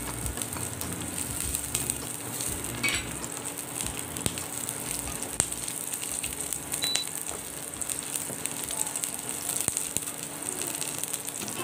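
Sliced garlic frying in hot cooking oil: a steady sizzling hiss with many small crackles.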